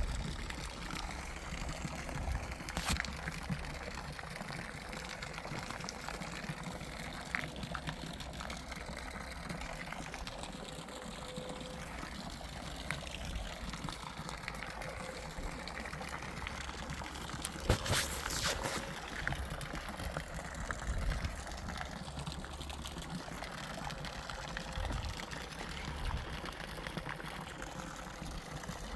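Steady trickle of running water, with a few sharp clicks, the loudest cluster about two-thirds of the way through.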